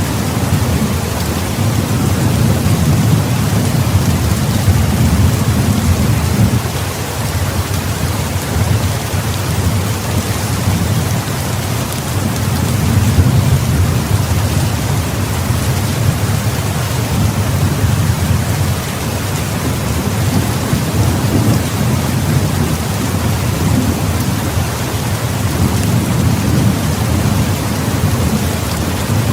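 Heavy rain pouring steadily, with a low rumble of distant thunder underneath that swells and eases several times.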